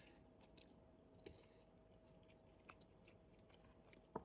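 Near silence: faint chewing, with a few soft clicks of a metal fork on a wooden cutting board, about one near the end.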